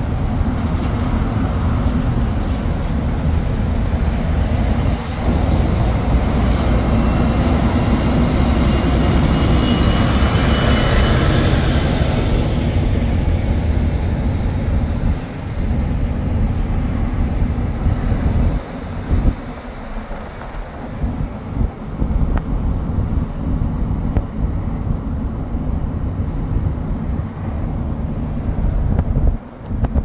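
Highway traffic noise heard from a car in slow traffic, with a car-carrier truck running right alongside: a steady low rumble that is heaviest in the first half and swells about ten to twelve seconds in, then eases to lighter road and wind noise.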